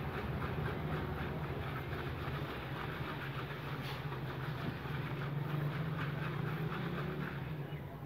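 Hand-shaking of a cloth-wrapped zip-lock bag of crushed ice and salt around the ice cream mix, giving a fast, even rattle over a steady low hum.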